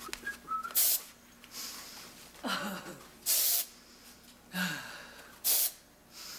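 Aerosol spray can hissing in three short bursts a couple of seconds apart, the middle one the longest.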